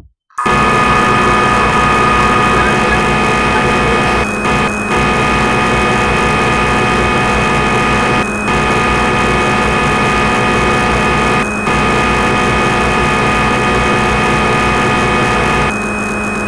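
Simulated CNC lathe machining sound played by the Swansoft SSCNC simulator as the turning program cuts. It is a loud, steady machine hum with several fixed tones that starts about half a second in, dips briefly a few times, and thins near the end as the tool retracts.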